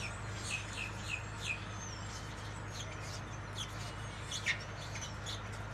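Small birds chirping in the background: short, quick downward-sliding chirps, several a second in the first second and a half, then scattered ones, over a steady low hum.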